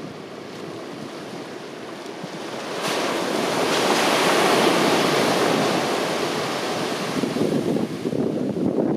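Surf: a wave breaking on a sandy shore, its rush swelling about three seconds in, peaking, then slowly fading as it washes up the beach. Gusts of wind buffet the microphone before the wave and again near the end.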